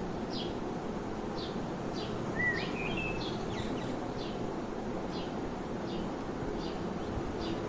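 Birds chirping over a steady background hiss: a short high call is repeated over and over, with a brief rising whistle about two and a half seconds in.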